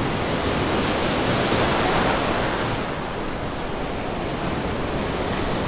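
Ocean surf breaking and washing close by, a steady, loud rush of foaming water that swells a little about two seconds in.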